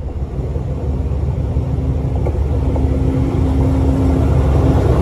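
D19E diesel-electric locomotive approaching, its engine giving a low rumble with a steady hum on top, both growing steadily louder.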